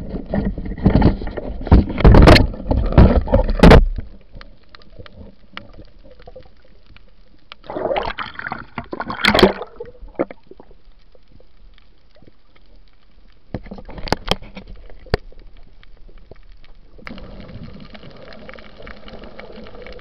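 Water sloshing and splashing against a camera underwater, in loud bursts over the first four seconds and again around eight to nine seconds in, with scattered sharp clicks and a faint hiss between.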